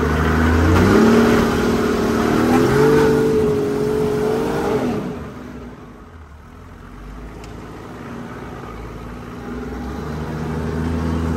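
Toyota Land Cruiser's engine revving off-road, heard from inside the cabin. Its pitch climbs about a second in and holds, steps up a little, then falls away about halfway through; the engine picks up again near the end.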